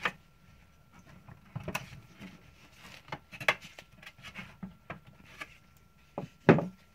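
Motor of a Mira Elite electric shower being prised loose from its plastic housing with long-nose pliers: scattered clicks and knocks of tool on plastic and metal, the loudest a sharp knock near the end.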